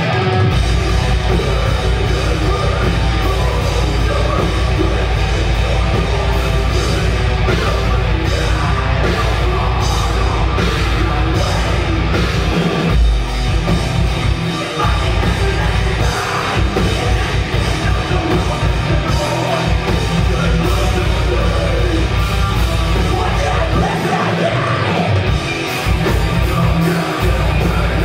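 Death metal band playing live, with distorted guitars and drums in a dense, loud wall of sound; the heavy low end drops out briefly a few times.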